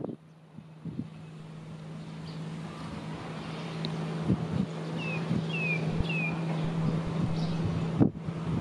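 Steady low drone of a diesel train engine, growing gradually louder, with wind on the microphone. A bird chirps three times about two-thirds of the way in, and a sharp thump comes near the end.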